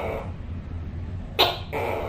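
Tokay gecko calling its loud two-note "to-kay": the tail of one call fades at the start, and about one and a half seconds in a sharp first note is followed by the longer second note. A steady low hum runs underneath.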